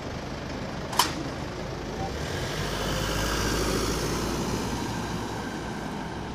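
A car driving past close by over a level crossing, its engine rumble and tyre noise swelling and then fading, after a single sharp click about a second in.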